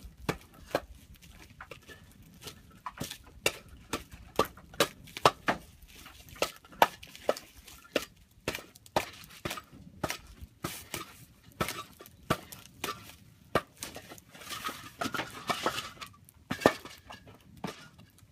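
Campfire crackling in a fire pit, with sharp, irregular pops several times a second and a denser burst of crackling about fifteen seconds in.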